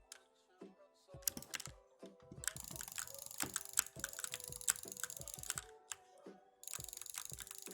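Typing on an E-Element Z88 75% mechanical keyboard: keys clack in quick, irregular runs starting about a second in, with a short lull near the end.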